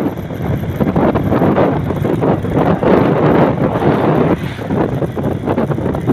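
Heavy wind buffeting on the microphone of a camera travelling along a road, with vehicle and road noise underneath; the loudness surges and dips unevenly throughout.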